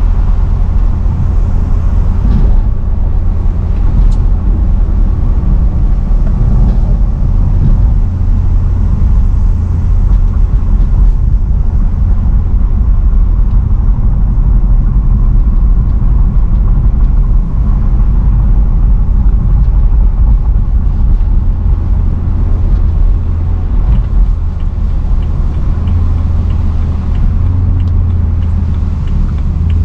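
BMW E92 M3's 4.0-litre V8 running steadily while the car is driven, a loud low rumble with no sharp revs.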